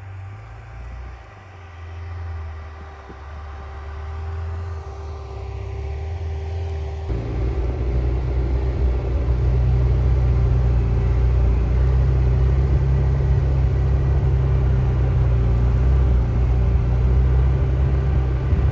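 Lada Niva 4x4's 1.7-litre four-cylinder engine driving through snow, first heard from a distance and growing louder. About seven seconds in it cuts abruptly to a close, loud, steady rumble of the engine and tyres as the car drives along a snowy track.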